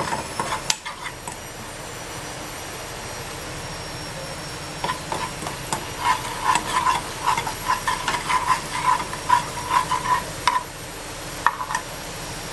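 Garlic and ground coriander sizzling in lamb tail fat in a small enamel pan, with a metal spoon stirring. From about five seconds in, the spoon scrapes and clinks against the pan in quick strokes for several seconds, and it does so once more near the end.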